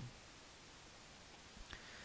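Near silence: faint room tone with a single faint click late on.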